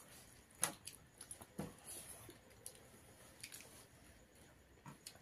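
Faint sounds of people eating a meal by hand: soft wet mouth sounds with a few short clicks and smacks.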